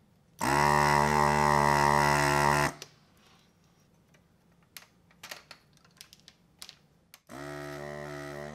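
Hakko FR-301 desoldering gun's built-in vacuum pump running with a steady buzzing hum for about two seconds as it sucks the solder off a joint. A few light clicks follow, then the pump hums again, more quietly, near the end.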